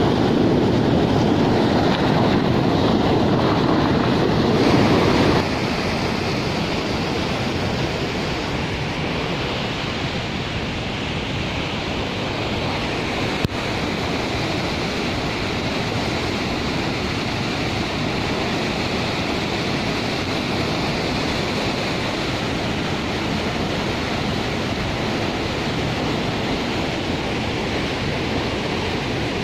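Water pouring over an open dam spillway flap gate: a steady rush of white water, louder for the first five seconds or so, then a softer, even rush.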